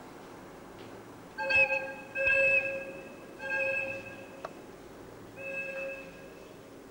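Locomotive air horn sounding four short blasts, each about half a second long, the last one quieter. A single sharp click comes between the third and fourth blasts, over a low steady rumble.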